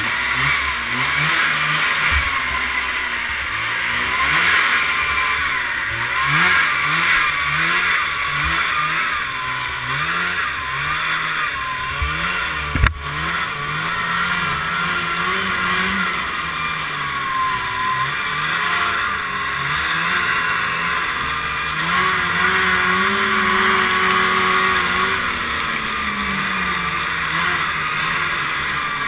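1978 Ski-Doo Everest 440 snowmobile's two-stroke engine running while riding, its pitch rising and falling again and again with the throttle. One sharp knock about halfway through. The owner says it is running poorly and keeps going through spark plugs.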